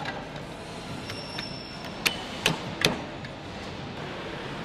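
Assembly-hall work noise: a steady background with three sharp knocks in quick succession about two seconds in.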